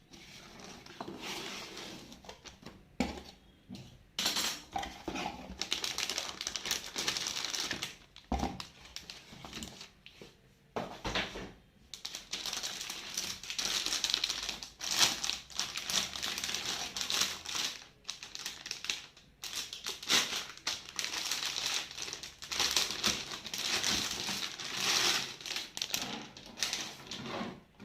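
A sealed motherboard box being unboxed by hand: packaging crinkling and rustling, with many small clicks and knocks from the cardboard and its contents.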